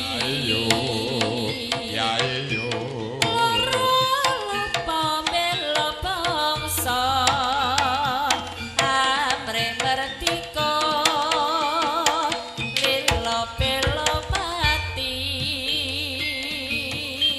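Live jaranan music: a wavering melody with heavy vibrato over rapid drum strokes and struck percussion, playing continuously.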